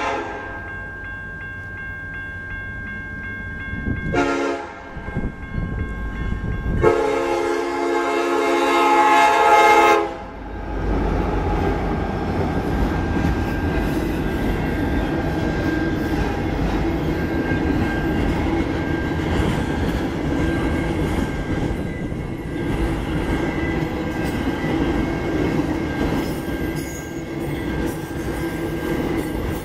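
Union Pacific EMD SD70ACe locomotive's horn sounding for the grade crossing: a quieter held note, a short blast, then a loud long blast that ends about ten seconds in. After that the train passes at speed, a steady rumble with the clatter of autorack freight cars' wheels on the rails.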